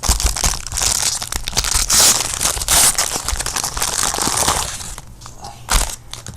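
Plastic wrapper of a jumbo football card pack being torn open and crinkled, dense and crackly for most of the time, then quieter. A single sharp knock comes near the end.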